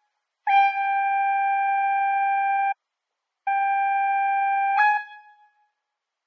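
Clarinet playing two long held notes at the same pitch, separated by a short silent gap. The second note ends in a brief step up to a higher note that fades away.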